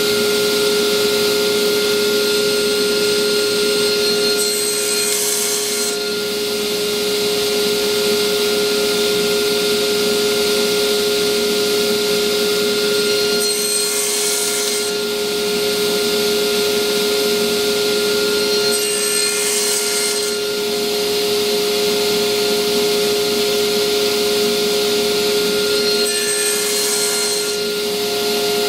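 Bandsaw running with a steady hum, its blade cutting wood in four short passes that each add a brief hiss, about five, fourteen, twenty and twenty-seven seconds in.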